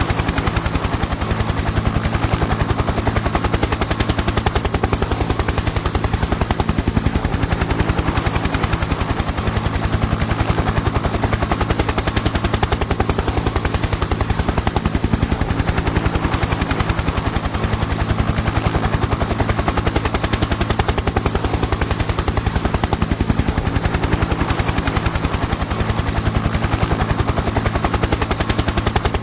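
Helicopter in steady flight: a rapid, even beating of the rotor blades over a steady engine drone and hiss.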